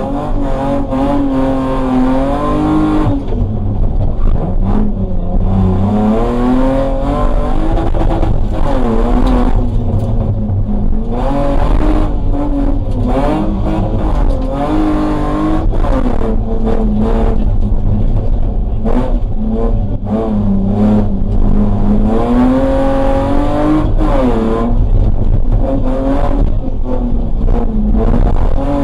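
BMW E30 320 rally car's engine, heard from inside the cabin at full stage pace. The revs climb and drop back again and again as it accelerates, shifts and slows for corners.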